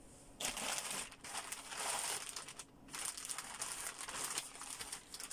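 Face mask packaging bag crinkling as it is handled, in stretches with a short pause near the middle.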